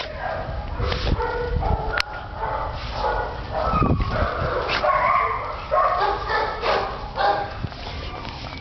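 Dogs barking and yipping in play, a dense string of short, pitched calls.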